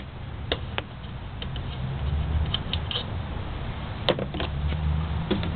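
A few short, light clicks and knocks, as of tools or parts being handled and set down, over a steady low background rumble.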